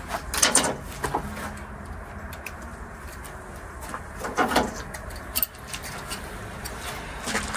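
A dove or pigeon cooing in the background, with a few short noisy bursts, the loudest about half a second and four and a half seconds in.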